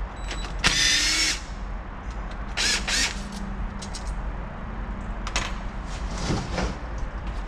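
A cordless drill spins a socket for under a second to back out the bolt holding the rooster comb detent on a transmission valve body. A few short metallic clicks and knocks follow as the tool and parts are handled.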